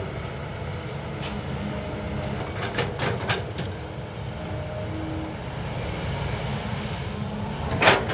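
Excavator's diesel engine running steadily with a low rumble, with a few short knocks about three seconds in.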